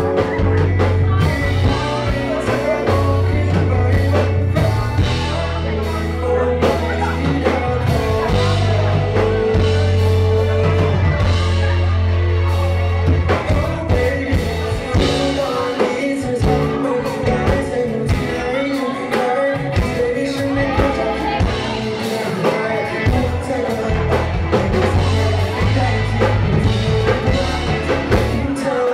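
Live rock band playing with a singer: a steady drum beat, held bass notes and guitar under the vocal.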